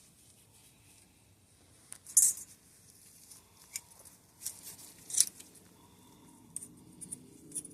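Light metallic clicks and scrapes of small hand tools on the Hope Race Evo X2 brake lever's clip, screw and pivot parts. There are a handful of sharp ticks, the loudest about two seconds in and about five seconds in, with a few smaller ones near the end.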